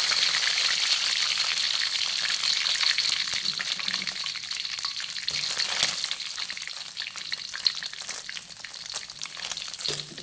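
Indian mackerel frying in hot oil in a wok, sizzling and crackling densely as the fish are lifted out with a metal slotted spatula. The sizzle eases off over the second half, with a single sharp click a little past the middle.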